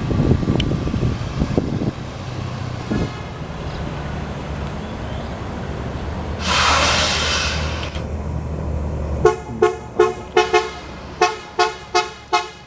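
Tour bus engine running as the bus passes, with a short burst of air hiss about six and a half seconds in. From about nine seconds in, its telolet horn plays a fast melody of short toots in two quick phrases.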